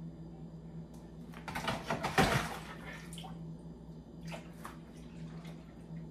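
Pineapple-cucumber juice poured from a small jug into a bowl to be strained, splashing and trickling; the loudest pour comes about two seconds in, with a few shorter, lighter pours around four to five seconds.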